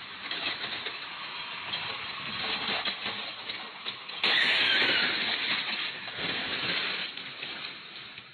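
A car's engine noise building, then a sudden loud crash about four seconds in, as the car hits a house, fading away over the next few seconds.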